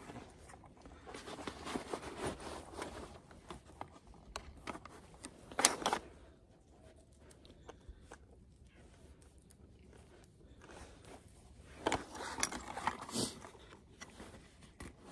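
Handling noise: a puffy nylon jacket rustling close by while hands pull and press a soft putty-like sealing cord around a plastic vent box, with light scrapes and a few sharp clicks, the sharpest about six seconds in.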